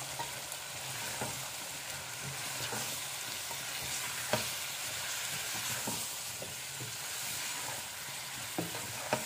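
Cubed potatoes and aubergine sizzling in masala and oil in a non-stick wok while a wooden spatula stirs and turns them. There is a steady frying hiss, with a few short knocks of the spatula against the pan, the sharpest about four seconds in.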